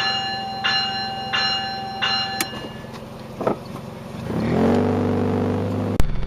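Vehicle-mounted train bell rung four times, about one strike every 0.7 seconds, each ringing on. About four seconds in, a real three-horn air train horn on the same vehicle sounds a chord for about a second and a half. Its pitch rises as it comes up to tone, and it cuts off abruptly.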